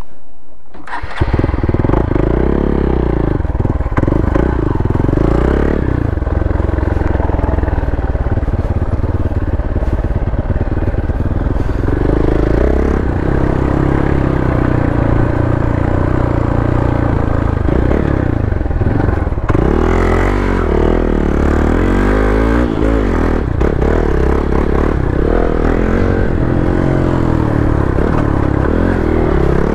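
Motorcycle engine being ridden off-road, revving up and easing off again and again as it goes.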